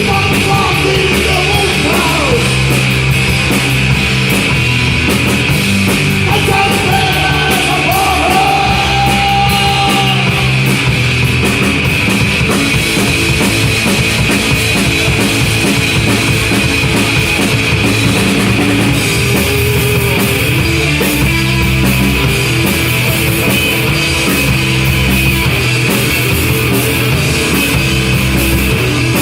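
Punk rock band playing a song loudly and without a break: electric guitars, bass and a drum kit.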